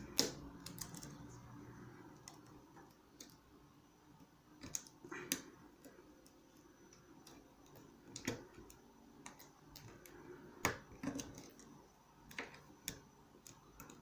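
Faint, irregular small metallic clicks and taps of a hook pick working against the wafers of a car wafer lock held under a tension wrench, searching for the binding wafer during single-pin picking.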